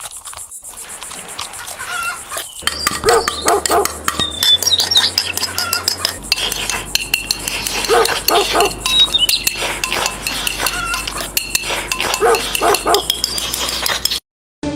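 A small dog barking in quick groups of two or three over a backing of music with a steady low bass note, with high chirps in between.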